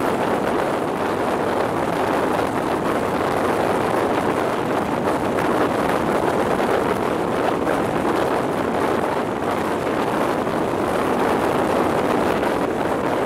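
Steady rush of wind over the microphone mixed with the running noise of an HST InterCity 125 train on the move, heard from outside the coach window.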